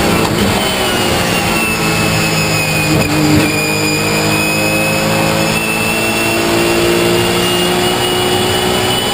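Porsche 997 GT3 Cup's naturally aspirated flat-six at high revs, heard from inside the stripped cockpit, pulling hard under full throttle with a high whine above the engine note. About three seconds in the pitch drops with an upshift, then climbs steadily again.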